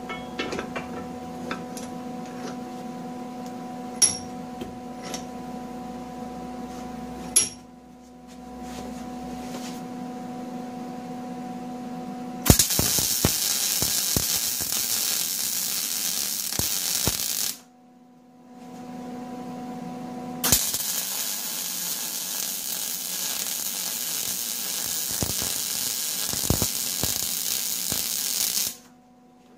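Gas-shielded MIG welder laying two beads to weld a steel socket onto a four-way lug wrench: a steady crackling sizzle for about five seconds, a pause of about three seconds, then about eight seconds more, cutting off shortly before the end. Before the first bead there is a steady electrical hum, with a few sharp metal clinks as the wrench is positioned.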